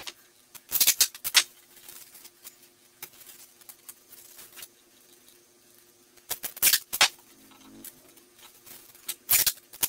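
Duct tape pulled off the roll and torn in short, sharp rips, about a second in, again around six to seven seconds in, and near the end, with quiet handling of cardboard and tape in between.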